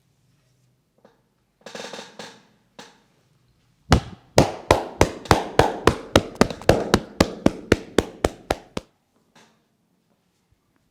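Massage hand strikes on a client: a brief rub, then from about four seconds in a fast, even run of sharp slaps, about five a second, lasting about five seconds.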